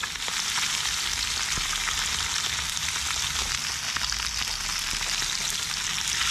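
Seasoned fish frying in hot oil in a small frying pan: a steady sizzling hiss with small pops and crackles.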